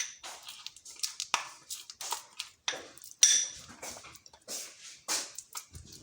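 A spoon stirring a thick mixture of honey and ground root powder in a bowl, scraping and clicking against the bowl in short, uneven strokes, about two or three a second.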